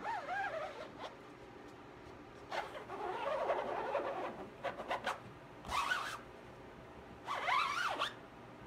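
Rubber squeegee dragged across an ink-flooded screen-printing mesh in several strokes, scraping with squeaks that bend up and down in pitch, and a few short clicks in the middle.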